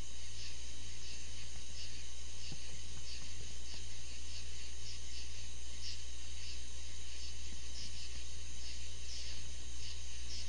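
Crickets chirping at night, a steady run of short repeated chirps over a constant low hum.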